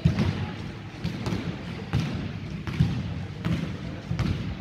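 Basketball dribbled on a wooden gym floor: a string of bounces about every half second to second.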